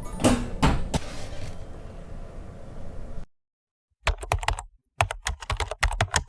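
Rain: a steady hiss with a couple of sharp knocks. After a brief cut to silence a little past halfway, it gives way to a quick, irregular patter of drops tapping on the capsule house's shell.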